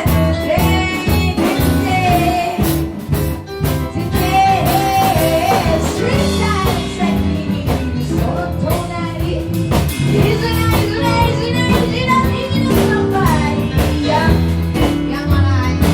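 Band music: a bass line and drums under a wavering lead melody.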